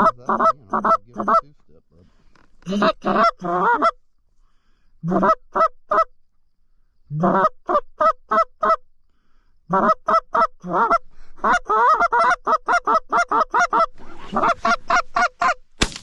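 A hand-held goose call blown in rapid groups of short honks and clucks, with pauses between the groups. A single shotgun blast comes just before the end.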